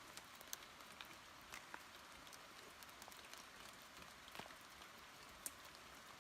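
Near silence: a faint steady hiss with scattered light clicks and ticks at irregular intervals, one a little sharper about five and a half seconds in.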